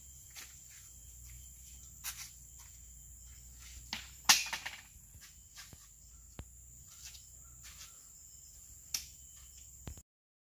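Outdoor ambience of a steady high-pitched insect drone, broken by scattered sharp clicks, the loudest about four seconds in. The sound cuts off suddenly about ten seconds in.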